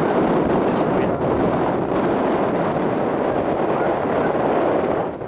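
Strong wind rushing and buffeting over the microphone, a steady loud noise.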